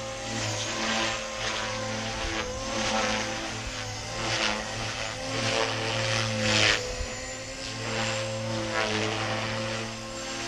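GAUI X3 electric RC helicopter with a Scorpion/GAUI GM-302S motor, flying 3D at medium headspeed. There is a steady whine that wavers slightly in pitch. The rotor blades whoosh in repeated surges as it manoeuvres, the loudest a little past the middle.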